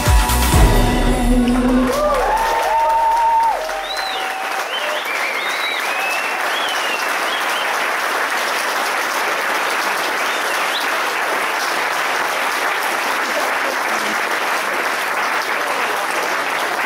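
Dance music with a heavy beat ends about three and a half seconds in, and an audience breaks into steady applause, with a few high cheers as the clapping starts.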